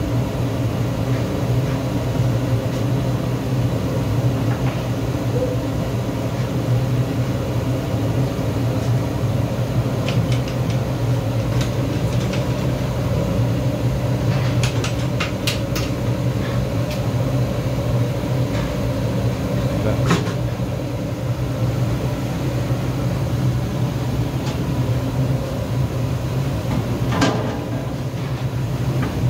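Steady low roar of a gas burner under a wide iron kadai of bubbling frying oil, with scattered clinks of a metal spatula against the pan.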